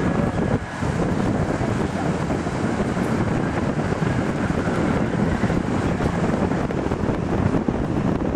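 Wind buffeting the camera microphone: a steady rushing noise that flutters in the low range throughout.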